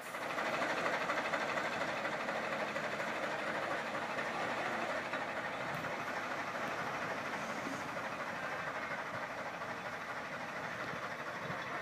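A train running, a steady rushing noise without a clear beat.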